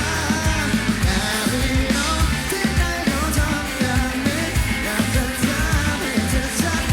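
Live rock band performance with a sung vocal over electric guitars, bass and drums keeping a steady beat.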